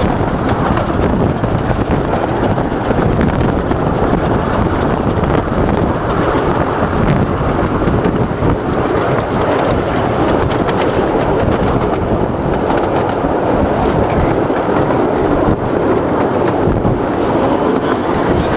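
Steady running rumble of a 15-inch-gauge miniature railway train, heard from alongside a moving carriage: wheels rolling on the rails with faint clicks over the rail joints.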